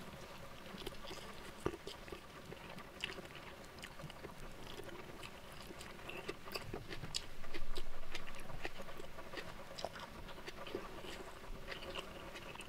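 Close-up wet chewing and biting of a mouthful of rice and tripe eaten by hand, with many small sharp mouth clicks and smacks. A louder stretch comes about eight seconds in.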